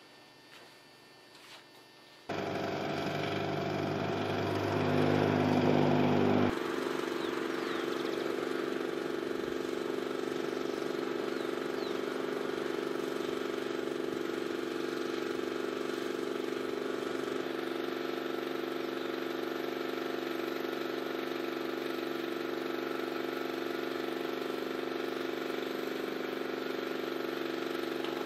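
Engine running steadily, starting suddenly about two seconds in. It changes tone once at about six seconds and then holds an even drone.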